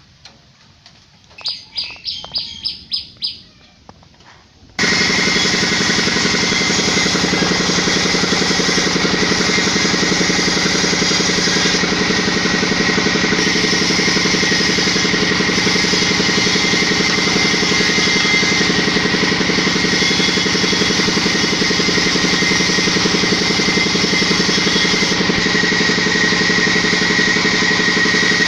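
A bird chirps a quick run of about eight notes, then a steady engine or motor comes in abruptly at full loudness about five seconds in and runs on evenly.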